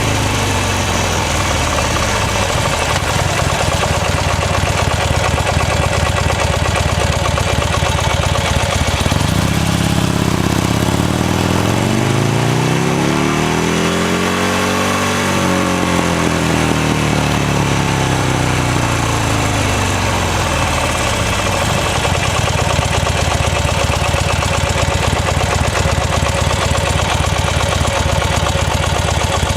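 Buell XB9S Lightning's air-cooled V-twin engine while riding. It slows at the start and runs low and steady for several seconds. About a third of the way in it revs up smoothly to a peak, then falls back and runs steady again.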